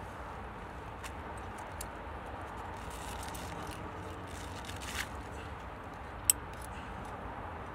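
Scattered small clicks and rattles of rope ascenders and climbing gear as a climber jugs up a fixed rope, with one sharp click about six seconds in, over a steady rushing noise.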